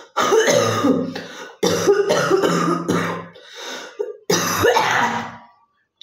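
A woman coughing hard and clearing her throat in three harsh bouts, each starting suddenly, with a smaller hack between the last two: a real chesty cough with phlegm.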